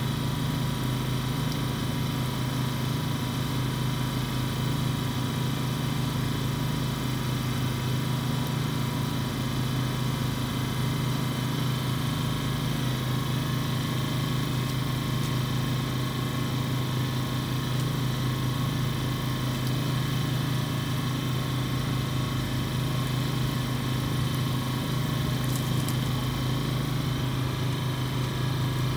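A steady engine hum, a motor idling without let-up: a low drone with a few thin, steady whine tones above it.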